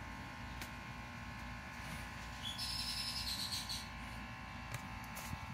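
A bird calling faintly in the background: one call, about two and a half seconds in, lasting about a second, over a steady faint hum.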